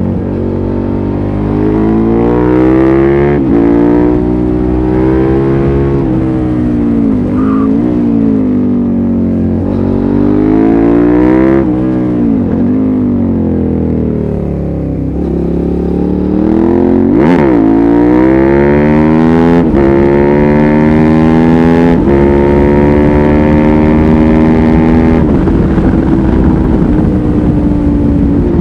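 2005 Suzuki SV650S's 645 cc V-twin running loud through a LeoVince aftermarket exhaust with its dB-killer fitted. Its pitch rises and falls again and again as the bike accelerates, shifts gear and rolls off, with one quick sharp rev-and-drop a little past the middle.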